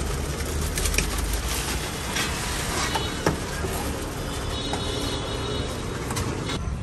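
Crushed ice shaken out of a plastic bag onto blocks of ice, with scattered clicks and crinkling over steady street traffic noise.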